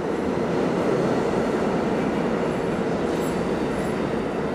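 R32 "Brightliner" subway train pulling out of the station, a steady rumble and rattle of steel wheels on the rails, with faint high wheel squeals about three seconds in.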